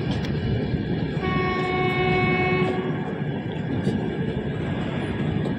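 Passenger train pulling out, heard from aboard: a steady rumble of the coach running on the rails, with a train horn sounding once for a little under two seconds, about a second in.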